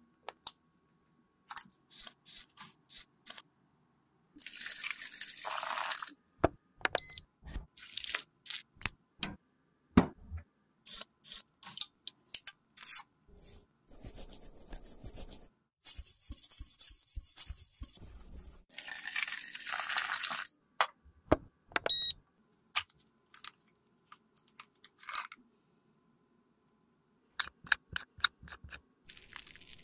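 Close-up handling of lipstick tubes and small cosmetic containers by gloved hands: a run of sharp clicks and taps, broken by several stretches of scratchy, hissing rubbing noise that last a second or two each.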